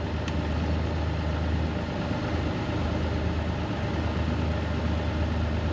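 Side-by-side utility vehicle's engine running at low speed with a steady low drone, heard from aboard the vehicle.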